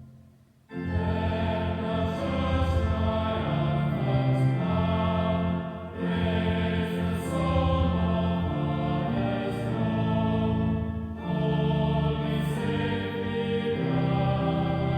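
Choral music: voices singing held chords over a moving bass line. It starts after a brief silence at the very beginning.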